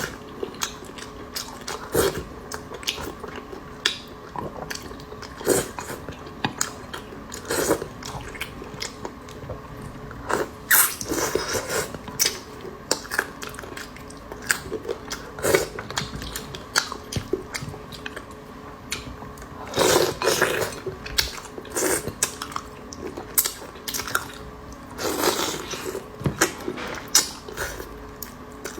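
A person eating close to the microphone: chewing and biting, with short mouth clicks at irregular intervals and a few longer noisy stretches of chewing.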